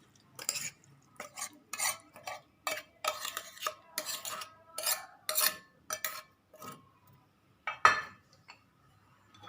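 A spoon stirring and scraping in a bowl, mixing cut raw turmeric with oil, salt and ground spices. It makes a run of uneven scrapes and clinks, about two or three a second, with a short pause and then the loudest scrape near the end.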